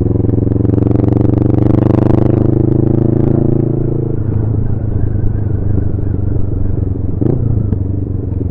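Motorcycle engine pulling along the road, its pitch climbing gently for the first couple of seconds, then easing off about four seconds in and running on steadily at cruising speed.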